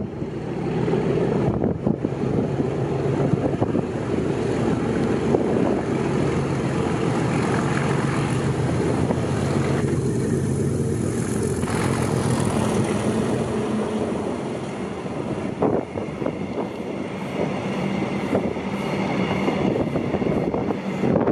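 A Class 37 diesel locomotive's English Electric V12 engine running under power as it approaches and passes close by. The engine note fades about three-quarters of the way through, and a quick run of wheel clicks on the rails follows as the towed locomotive and coaches go past.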